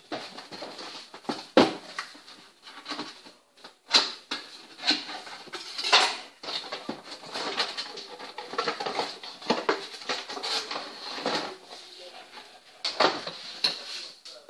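Cardboard box and clear plastic packaging of a gaming headset being handled and opened by hand: an irregular run of scrapes, rustles and sharp knocks.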